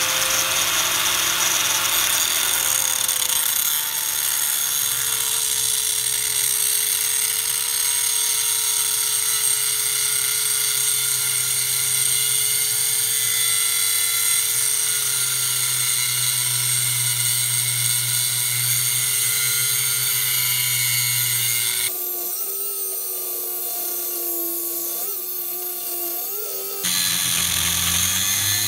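Angle grinder running at full speed and cutting into the metal casing of a small DC motor held in a vise: a steady high whine over a hiss of grinding, the pitch sagging slightly as the disc bites. For a few seconds near the end the whine drops lower and quieter, then comes back.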